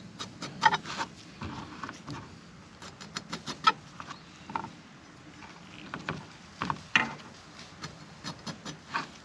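Irregular clicks, taps and knocks of camp cooking utensils being handled, with a quick cluster of sharp clicks a few seconds in.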